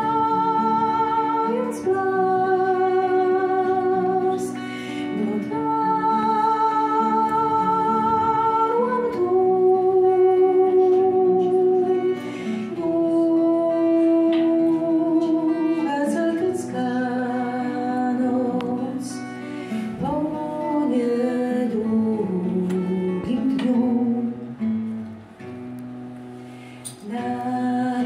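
A woman singing long, held notes with vibrato, accompanied by an acoustic guitar. Near the end the voice drops out briefly and the guitar carries on alone, quieter.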